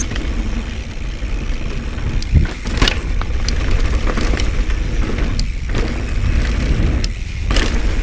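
Pivot Switchblade mountain bike ridden fast over a rocky dirt trail: wind buffeting the camera microphone and tyres rolling over gravel, with rattles and sharp knocks from the bike over bumps and one heavy thump about two and a half seconds in.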